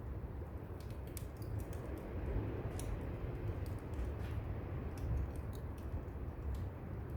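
Firewood burning in a brazier, crackling with irregular sharp pops, over a steady low rumble of distant waves.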